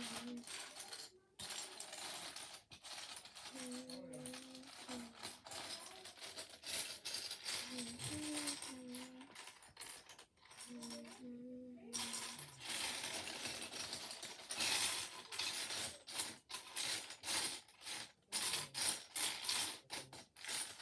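Small plastic Lego bricks rattling and clicking against each other as a hand rummages through a pile of pieces, searching for one. The clatter is irregular and gets busier and louder in the second half.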